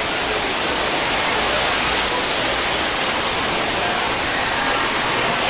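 Steady rushing noise of water from the pools, slides and water features of an indoor waterpark, with no pauses or single loud events.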